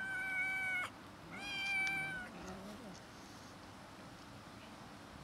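A kitten meowing: a long, high, steady cry that cuts off just under a second in, then a second, shorter cry that sags slightly at the end, with a low wavering sound beneath it, a sign of a tense standoff over food with an older cat.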